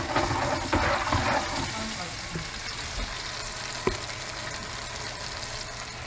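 Coated beltfish strips frying in hot oil in a pan: a steady sizzle, busier in the first second or so, with a single sharp click about four seconds in.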